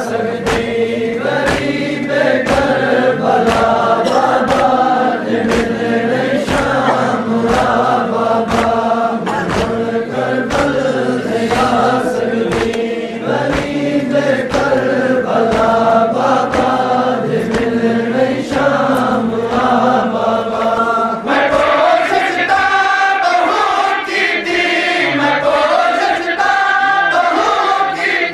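Men's voices chanting a Seraiki noha, a Shia mourning lament, together, kept in time by steady matam chest-beating slaps somewhat under two a second. About three-quarters of the way in, the lower voices drop away and higher voices lead.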